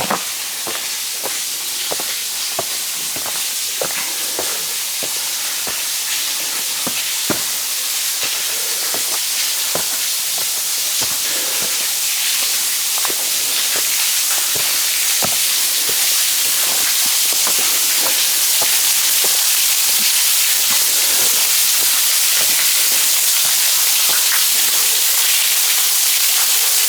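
Rushing water from a stream or waterfall, a steady hiss that slowly grows louder as it is approached, with footsteps crunching on the trail.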